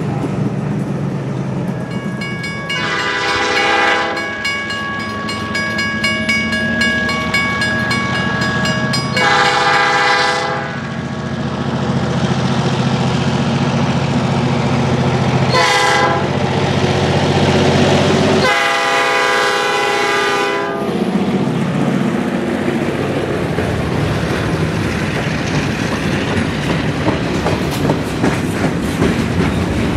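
Diesel locomotive air horn blowing the grade-crossing signal, long, long, short, long, over the rumble of the engine. Afterwards the train rolls past with wheel noise and clicking over the rail joints.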